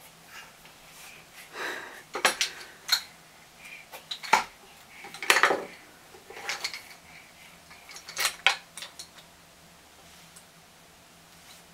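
A small child handling a plastic toy, making clusters of clattering knocks and rattles that stop about three-quarters of the way through.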